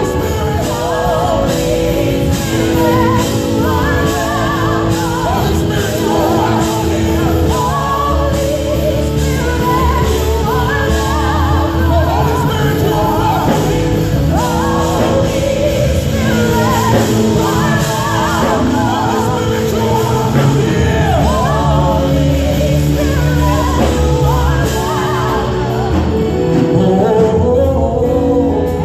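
Live gospel worship music: a lead singer and a group of backing vocalists singing over a steady band accompaniment.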